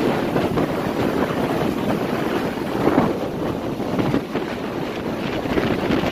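Ocean surf breaking and washing among rocks, with wind buffeting the microphone.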